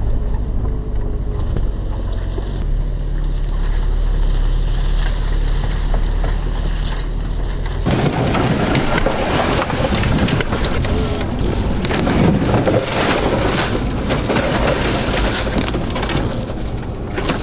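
4x4 vehicle driving slowly along a rough forest trail: a steady low engine and drivetrain rumble with wind noise on the microphone. After a cut about eight seconds in, a dense crackling and scraping of branches and leaves brushing along the bodywork and windscreen runs over the vehicle noise.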